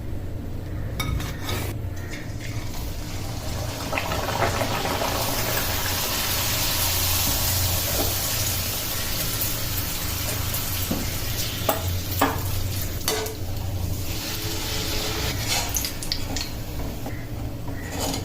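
Luchi deep-frying in hot oil: a sizzle that swells about four seconds in and eases off after about fourteen, with scattered clinks of a utensil against the pan and a steady low hum underneath.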